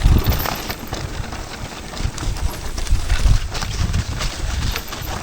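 Irregular knocks and thumps over a low rumble, the jolting and rattling of a ride over rough ground.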